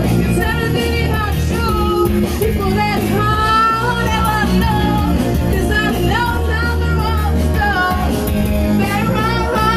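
A young woman singing a song into a microphone, with instrumental backing. Her voice carries a held, sliding melody over a steady accompaniment.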